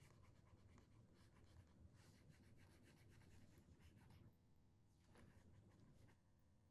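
Very faint scratching of a pen stylus rubbing on a drawing tablet as lines are erased. It pauses briefly past the middle and stops shortly before the end.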